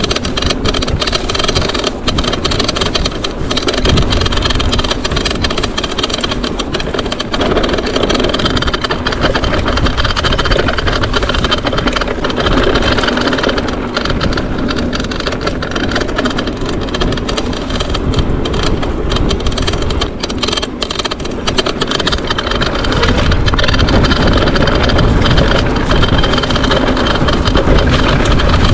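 Mountain bike rolling over a trail: continuous tyre noise with the bike's parts rattling and knocking over bumps, getting a little louder near the end.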